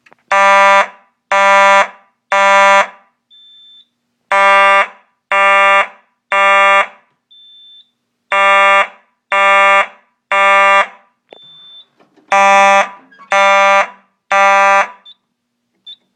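Simplex 4903-9219 mechanical horn strobe sounding in the code 3 temporal pattern: four rounds of three short, buzzy blasts with a pause between rounds. This is a fire alarm system in alarm, giving the temporal-three evacuation signal.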